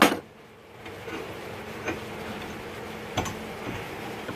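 Sharp clicks and knocks, a loud one at the very start and another about three seconds in, with fainter ticks between, over a steady low hum.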